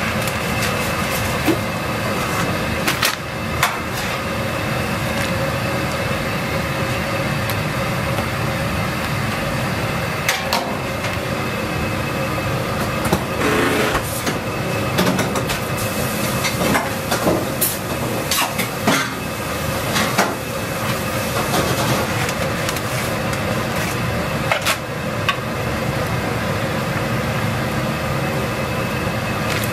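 A big steel pot of thin wheat noodles at a rolling boil on the stove: a steady rushing boil with a faint steady hum underneath. Scattered clinks and knocks come from utensils against the pot as the noodles are stirred.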